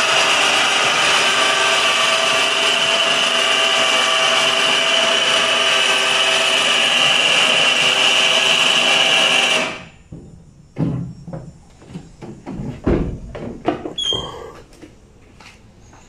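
12-volt electric winch motor running steadily as it lowers the lift platform, then cutting off suddenly about ten seconds in. A few scattered clicks and knocks follow.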